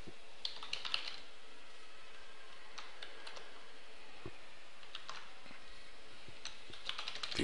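Computer keyboard typing: irregular short runs of key clicks with pauses between them.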